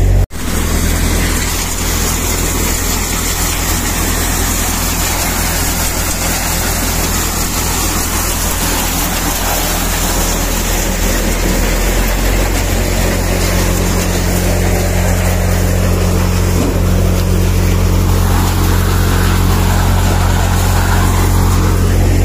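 Four-fan cutter, a thresher-type farm machine, running with its engine at a steady deep drone. The sound drops out for an instant just after the start, and a slightly higher hum joins about halfway through.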